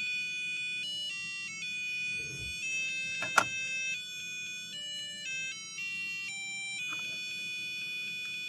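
CrowBot BOLT robot car's onboard buzzer playing a Christmas tune as a string of beepy electronic notes. A sharp click sounds about three and a half seconds in.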